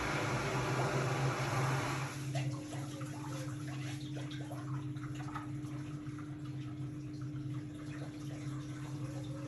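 Hotpoint-Ariston RSG 825 J washing machine taking in water: a rush of inflowing water stops about two seconds in, leaving a steady hum with faint splashing of water in the drum.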